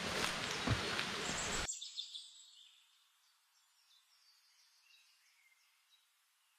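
Footsteps scuffing over rock and dry leaves, with a steady rushing hiss, cut off abruptly a little under two seconds in. Then only faint bird chirps and short whistles remain.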